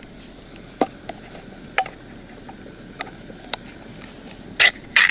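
Scattered sharp metallic clicks and clinks from a tin of stewed meat and a cooking pot being handled, a few light ones at first and louder ones near the end, over a steady low hiss.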